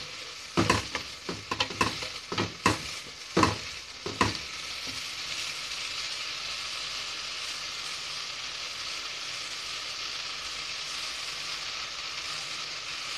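Chopped onions and garlic sizzling in butter and oil in an aluminium pot, with a wooden spoon knocking and scraping against the pot for the first four seconds or so, then a steady sizzle.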